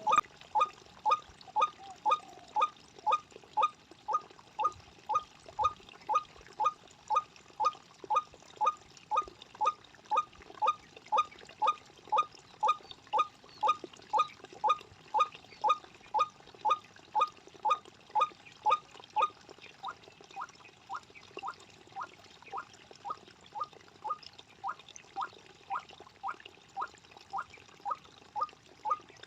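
White-breasted waterhen (ruak-ruak) call: a short rising note repeated very evenly about twice a second without a break, the call used to lure waterhens. It drops a little in loudness about two-thirds of the way through.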